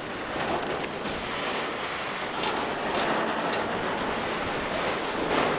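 Freight train's autorack cars rolling past in reverse: a steady rolling noise of steel wheels on rail, with a few faint clicks from the wheels.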